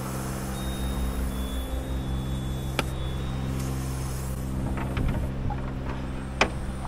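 Engine running steadily at an even idle, a low constant hum, with two sharp knocks, one about three seconds in and one near the end.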